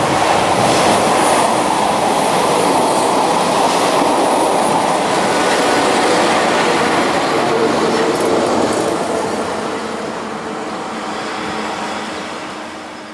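Electric multiple-unit passenger train passing close by, its rolling noise of wheels on rail loudest through the first half and fading as it draws away, with a steady hum under it.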